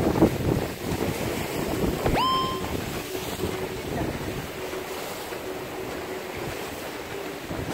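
Strong wind buffeting the microphone over the wash of sea waves on the rocks. About two seconds in, a short whistle-like tone sweeps up and holds for about half a second.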